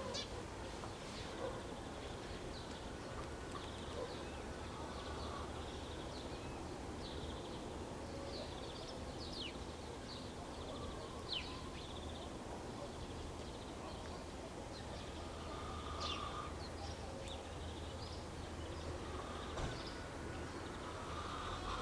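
Small birds chirping in a village morning outdoor ambience: many short, high chirps and quick falling notes scattered throughout, over a steady low background hum.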